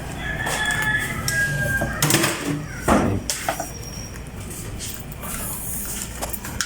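Rooster crowing, one long call through the first two seconds or so, followed by a few sharp knocks around two to three seconds in.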